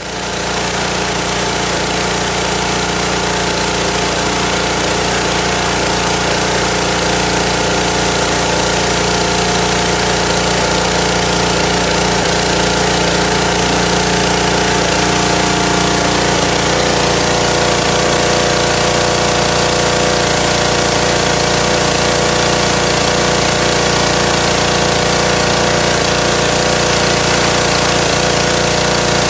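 Petrol-engine pressure washer running steadily, its small engine's even hum under the hiss of the high-pressure water jet spraying from the wand.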